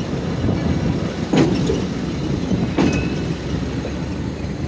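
Railroad motorcar rolling slowly along the track with a steady low rumble, its wheels giving two sharp clacks about a second and a half apart.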